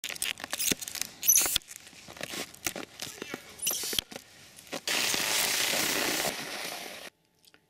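Clicks, snaps and crunchy scrapes of a Salomon SNS cross-country ski binding being latched by hand on a booted ski in snow. About five seconds in, a steady hiss of skis gliding over snow starts and cuts off about two seconds later.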